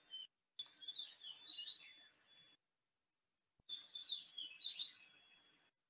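A songbird singing in the background: two phrases of quick, high chirps, each about two seconds long, with the sound cutting in and out abruptly between them.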